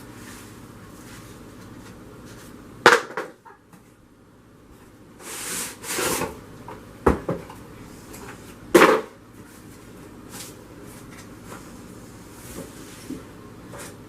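A cardboard box and its packaging being handled: a few sharp knocks and thumps, about three seconds in, seven seconds in and nine seconds in, with a stretch of scraping and rustling between them.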